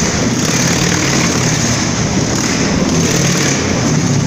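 A motorcycle engine running steadily, with no revving.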